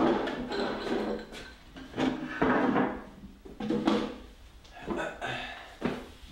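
A glass set down on a wooden table with a sharp knock, followed by a few bursts of handling noise: a phone laid on the table and a wooden chair moved as someone sits down at it.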